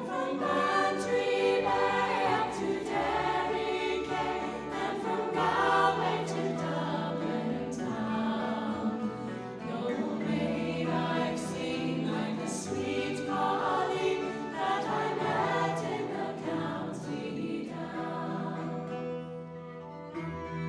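Background music: a choir singing long, held harmonies.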